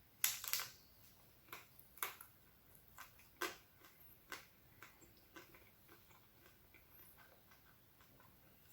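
Faint close-up chewing of crispy chocolate-coated wafer ice cream: scattered crunches and mouth clicks, several in the first few seconds, then fewer and softer.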